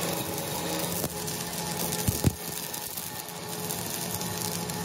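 Stick-welding arc crackling steadily as the rod lays weld onto a worn steel excavator bucket pin to build it back up, with a couple of sharp pops about two seconds in.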